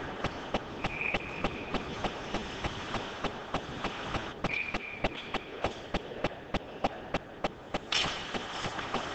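A steady run of sharp clicks, about four a second, over arena noise, with two short referee's whistle blasts, about a second in and again about four and a half seconds in.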